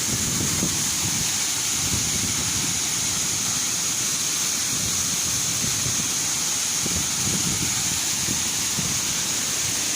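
Waterfall in full flow: a steady rush of falling water, with irregular low rumbles under it.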